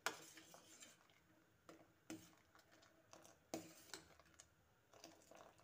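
Metal ladle clinking and scraping against a steel pot while stirring milk: one sharp clink at the start, then a scattering of lighter clinks.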